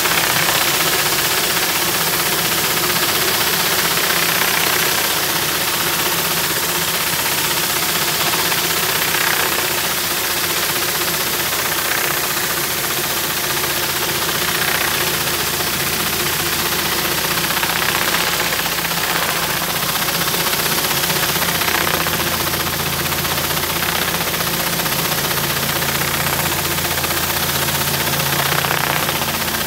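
Rotary surface cleaner on a pressure washer hissing steadily as its spinning jets blast cold water onto concrete, with a steady engine drone underneath.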